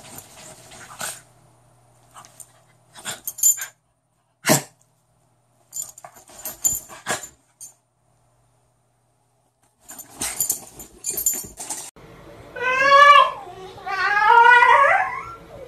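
Short scuffling, snuffling bursts. Then a dog gives two drawn-out whining howls that rise and fall in pitch, the second longer than the first.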